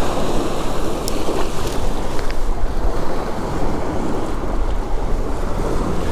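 Strong wind buffeting the camera microphone, a loud steady rush with a deep rumble, over wind-driven waves washing on the reservoir shore.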